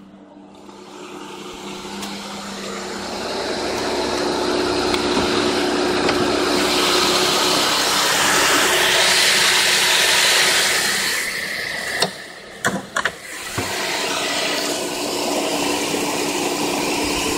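The 3.4-litre 3400 V6 engine of a 2003 Oldsmobile Silhouette idling with a steady hum. About twelve seconds in come a few sharp clicks and knocks as the hood is raised and propped.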